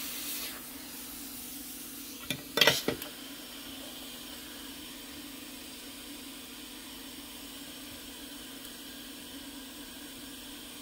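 Hot air rework station blowing steadily, an airy hiss over a fan hum, easing slightly about half a second in. About two and a half seconds in, a click and then a quick cluster of sharp knocks stand out as the loudest sounds.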